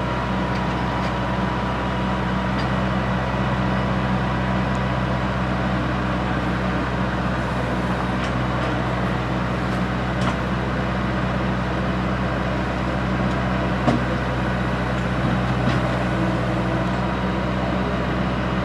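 Engine of a piece of heavy equipment running steadily at an even speed, with a couple of faint knocks partway through.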